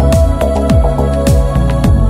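Background electronic music with a steady kick-drum beat about every 0.6 s under sustained synth tones.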